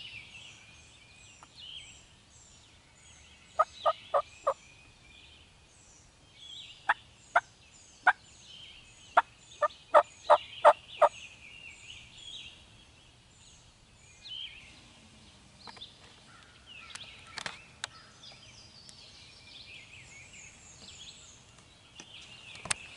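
Turkey calling in short sharp notes: a quick run of four, then several more spaced out over the next few seconds. Songbirds sing throughout.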